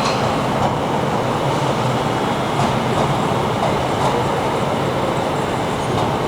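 Train running steadily on the track, a continuous rumble with a few faint wheel clicks.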